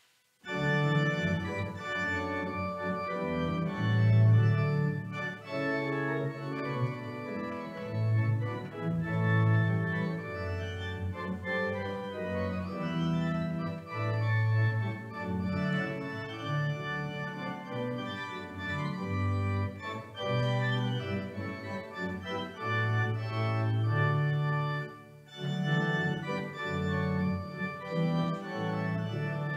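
Organ playing a recessional voluntary: sustained chords that start suddenly about half a second in, with a brief drop near the end.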